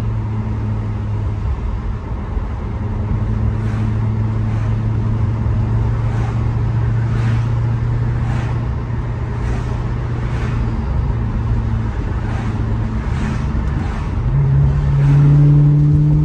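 Maserati GranTurismo's V8 engine under way: a steady low drone at cruise, then about fourteen seconds in it revs up under acceleration, rising in pitch and getting louder.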